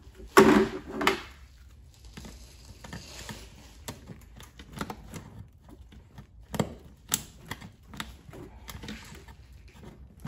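Hands handling a car seat's wiring connector and felt carpet backing: a second-long rustle and scrape about half a second in, then scattered light plastic clicks and taps while the connector is worked free.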